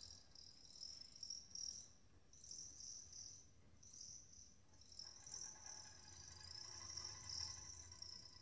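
Faint, high-pitched chirping made inside a grand piano and amplified through piezoelectric contact microphones and live electronics. It comes as short separate chirps for the first few seconds, then turns into a continuous shimmer about five seconds in, over a low hum.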